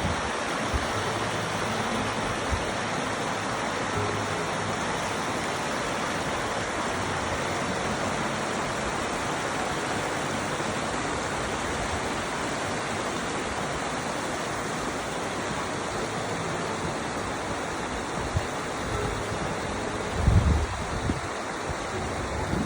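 Steady rush of flowing stream water, with a brief low rumble near the end.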